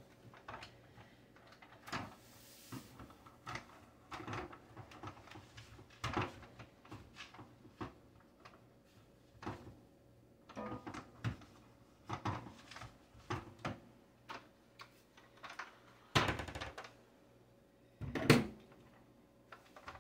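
Light plastic knocks and rubbing as a Tineco cordless stick vacuum's wand and floor head are handled and wiped down with a cloth, with a louder knock near the end.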